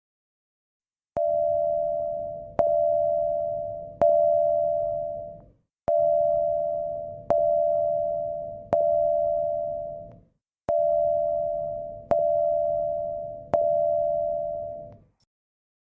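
Emergency alert alarm tone: a two-note electronic beep repeated in three groups of three. Each beep starts sharply and fades away over about a second and a half, with a short pause between groups.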